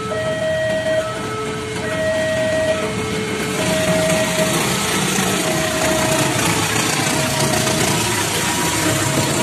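A level-crossing warning signal sounding an alternating two-note tone, high then low, over and over. From about three and a half seconds in, a KAI diesel-electric locomotive and its passenger coaches come close and pass, and the engine's running and the wheels on the rails grow loud over the signal.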